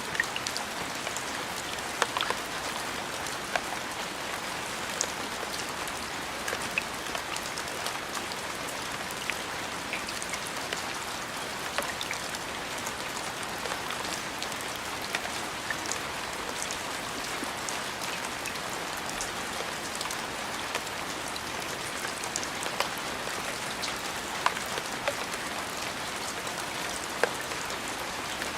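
Steady rain falling on a surface: an even hiss with scattered sharper drop taps.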